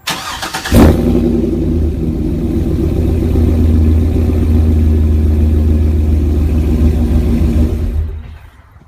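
A vehicle engine is started: a brief crank, then it catches about a second in and runs steadily at a fast idle. Near the end it dies away.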